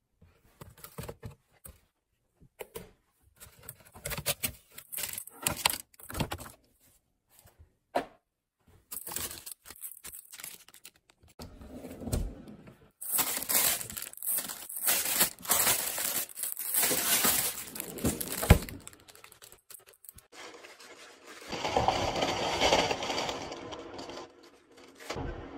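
Rummaging in a refrigerator: plastic bags rustling and crinkling among clicks and knocks of containers and a drawer. Near the end, food is tipped from a plastic bag into a steel saucepan.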